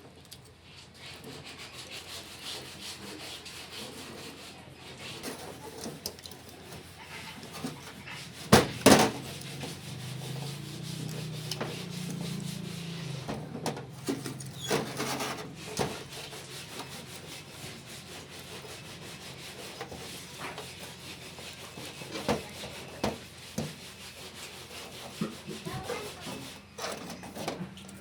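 Hand work on a part: continuous rubbing and scraping, broken by sharp knocks, two loud ones close together about nine seconds in and more around fifteen seconds.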